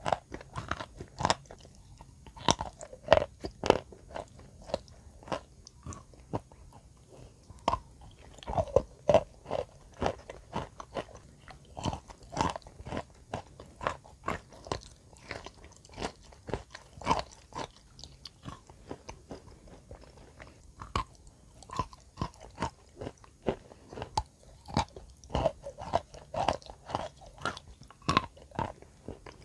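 Close-miked crunching of wet chalk being bitten and chewed, with a few sharp, irregular crunches a second.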